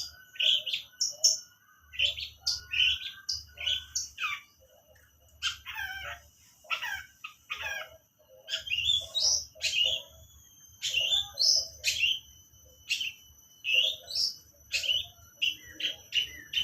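Long-tailed shrike (pentet) singing a lovebird imitation: a steady run of short, sharp, high chirps about two a second, broken around the middle by a few seconds of rapid falling warbled notes.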